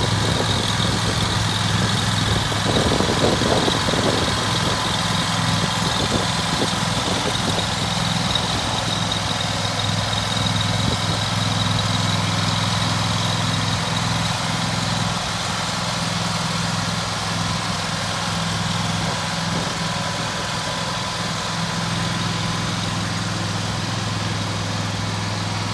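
Kubota Z726 zero-turn mower's Kawasaki V-twin engine running steadily at idle, easing off slightly about halfway through.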